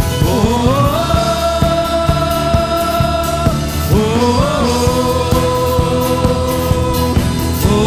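Live praise-and-worship band music: drum kit and low bass under a melody of long held notes, each sliding up into pitch, once just after the start and again about four seconds in.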